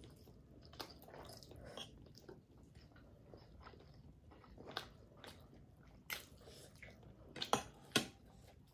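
Mouth sounds of eating noodles and seafood close to a clip-on microphone: soft chewing with many small wet clicks and smacks, and a few sharper clicks near the end.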